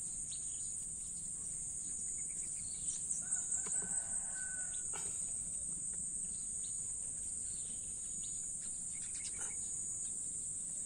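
Steady high-pitched insect chirring, with a rooster crowing in the distance about three to five seconds in.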